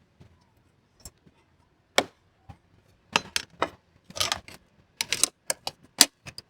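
A license plate and aluminum frame being handled and fitted together: a series of sharp metal clicks and taps, one louder knock about two seconds in, then a quicker run of clicks and small rattles in the second half.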